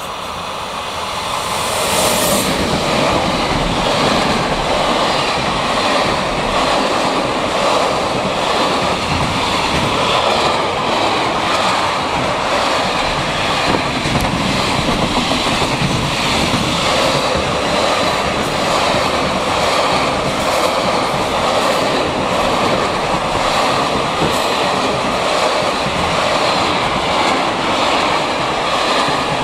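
Electric-hauled intermodal freight train passing close by: the sound builds as the locomotive goes past about two seconds in. After that comes a long, steady rolling noise of container and trailer wagons running over the rails.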